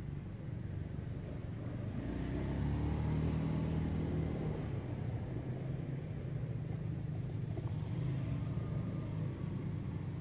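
A motor vehicle's engine hums low and steadily, growing louder about two seconds in.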